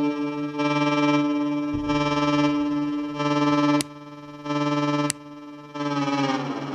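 Unreachable Void noise machine pedal putting out a pitched, distorted drone that pulses on and off in uneven chunks. There are two sharp clicks about four and five seconds in, each followed by a drop in level, and near the end the pitch slides downward.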